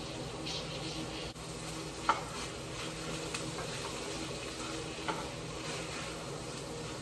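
Food frying and sizzling steadily in a pan while it is stirred, with the utensil clicking against the pan a few times.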